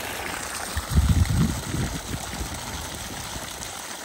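Steady running, trickling water, with a brief low rumble about a second in.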